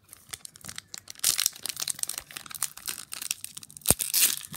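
Crinkling of a foil Pokémon booster pack wrapper as it is handled and torn open, louder from about a second in, with one sharp click near the end.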